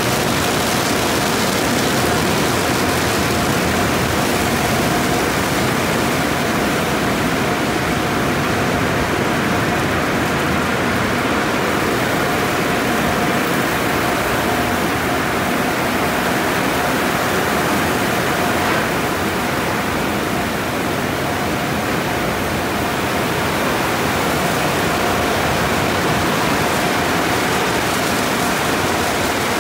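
Tunnel car wash running: a loud, steady rush of spraying water and spinning cloth brushes on a car, with a faint steady whine running through it.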